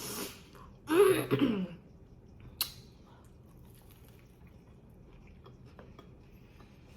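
A short loud vocal sound about a second in, then a single sharp click, then faint, quiet chewing while eating a sandwich.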